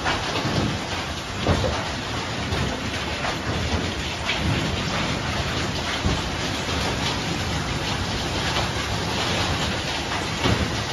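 Heavy rain pouring down in a windy storm, a steady dense hiss with a few sudden louder knocks or gusts, the strongest about a second and a half in and near the end.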